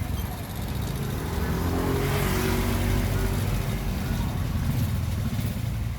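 An engine running, its sound swelling to a peak about two and a half seconds in and then easing off.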